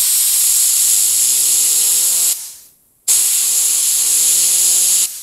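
Air-compressor blow gun blasting compressed air at a fidget spinner in two bursts of about two seconds each, with a loud hiss. Under the hiss the spinner whirs, its hum rising in pitch as it spins up.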